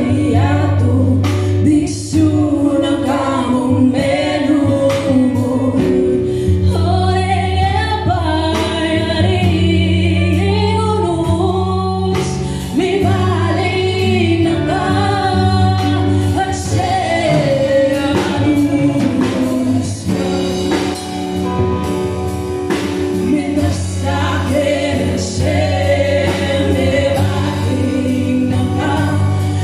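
Live band playing a worship song: singers over drums, bass guitar, electric and acoustic guitars and keyboard, with a steady drum beat throughout.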